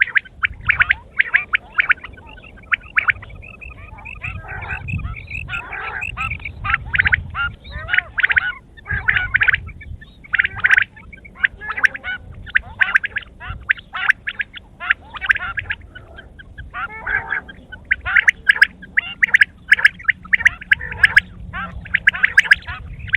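Quail calling over and over, short notes in rapid succession with only brief pauses.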